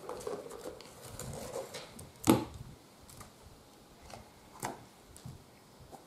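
Handling noise of binoculars being taken out of their carrying case: soft rustling, a sharp knock a little over two seconds in, and a softer knock about four and a half seconds in.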